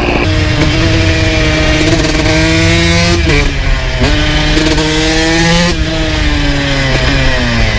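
Two-stroke single-cylinder engine of a 2002 Honda CR125 with a full FMF exhaust, ridden under throttle at high revs. The engine note holds high, with short sharp dips in pitch about three times and a gradual fall just before the end.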